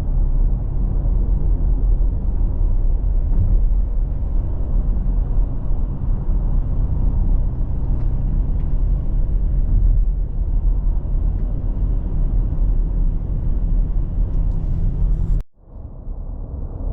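A 2024 Porsche Cayenne Coupe's 3.0-litre V6 cruising, a steady low rumble of engine and road noise with no revving. The sound cuts out abruptly for about a second near the end, then comes back.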